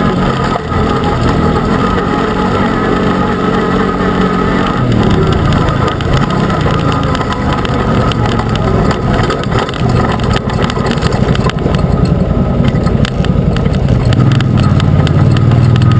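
Arctic Cat Wildcat UTV engine running while driving off-road, its note shifting as it slows and speeds up. Frequent short knocks and rattles run through the second half.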